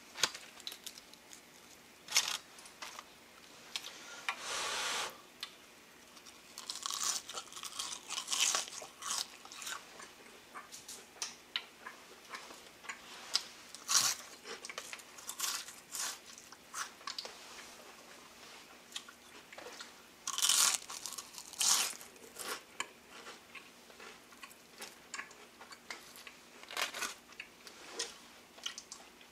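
Crisp, freshly deep-fried acacia flower and crown daisy tempura being bitten and chewed: irregular sharp crunches, with a few longer runs of chewing.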